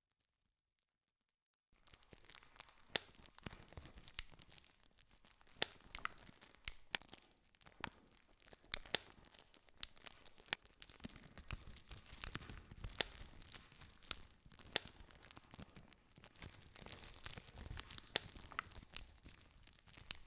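Campfire crackling: burning wood snapping and popping in irregular sharp cracks over a soft hissing bed. The first second and a half is dead silent before the crackling cuts in.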